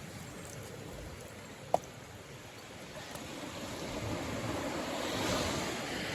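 Sea waves washing ashore: a steady surf hiss that swells to a peak about five seconds in. A single short, sharp click about two seconds in is the loudest sound.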